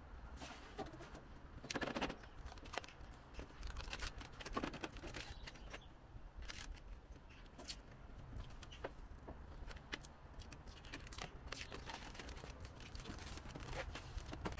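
Scattered light clicks, scrapes and rustles of hands fitting the parts and fasteners of a Bison Gear fold-down table onto a Jeep Wrangler tailgate, with a louder rustle about two seconds in.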